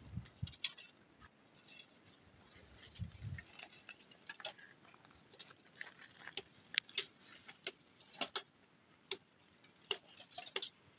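Faint, irregular clicks and light ticks, with a couple of soft low thumps near the start and about three seconds in.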